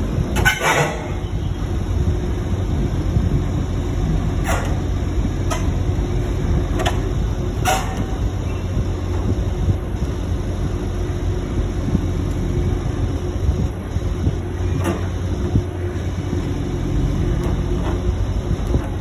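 Steady low rumble of heavy machinery with a faint constant hum, as around a log-loading crane. A few short sharp clicks or knocks come through it, about a second in, several between four and eight seconds, and one near fifteen seconds.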